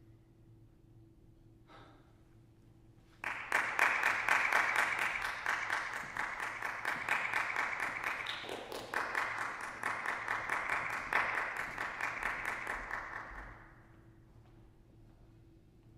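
Audience applause: a dense patter of many hands clapping that breaks out suddenly about three seconds in, holds for around ten seconds and dies away near the end.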